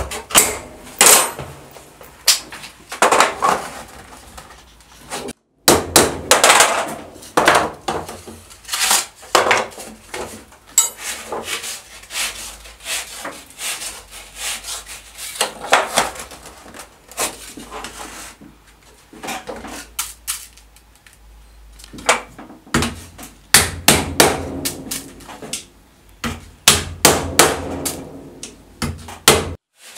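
Small hammer tapping tacks into the thin bentwood rims of round wooden boxes, in quick clusters of sharp taps with short pauses, along with wooden hoops knocking and rubbing on a metal workbench.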